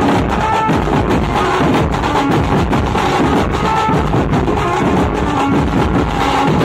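Dhumal band playing live: many large barrel drums beaten with sticks in a fast, dense rhythm, with a melody of short held notes over the drumming.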